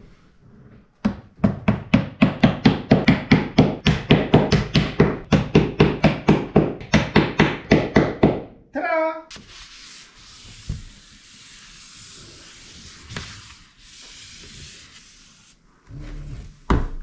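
Rhythmic rasping strokes of a hand tool working wood, about four a second for some seven seconds, as the glued-in wooden bungs on the trim are worked down. A short squeak falling in pitch follows, then a faint steady hiss.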